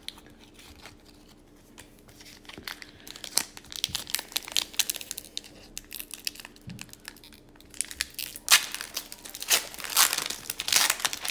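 Foil wrapper of an Upper Deck hockey card pack crinkling and tearing as a pack is opened, mixed with stiff trading cards sliding against each other. The crinkling grows louder and denser in the last few seconds.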